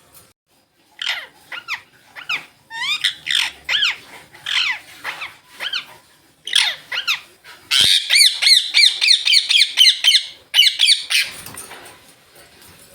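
Green Indian ringneck parrots calling: a string of short chirps and squawks, then, about eight seconds in, a fast run of repeated shrill calls lasting about three seconds.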